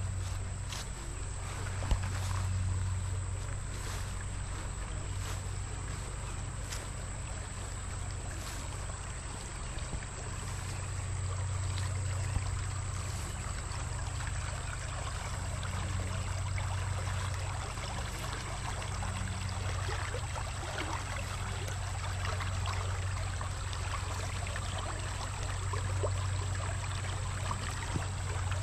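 Water running steadily in a spring-fed stream, an even rushing with a low steady rumble underneath.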